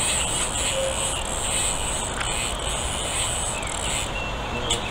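Spinning reel with its drag (clutch) set too loose while a hooked fish is played, giving a high, fluttering buzz that stops suddenly about four seconds in; the slack drag lets the line slip, so the fish cannot be wound in.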